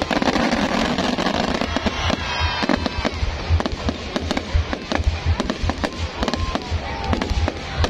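Fireworks going off in rapid succession: dense sharp bangs over continuous crackling, with a few whistling glides from shells in flight.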